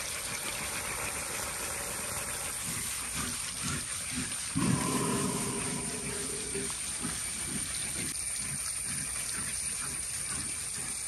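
Steady hiss of water, with an Asian elephant giving one low call lasting about two seconds, starting about four and a half seconds in.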